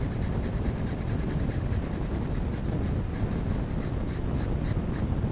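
Toothbrush bristles scrubbing dust off the plastic blades of a laptop cooling fan, a run of quick scratchy strokes that thins out near the end, over a steady low rumble.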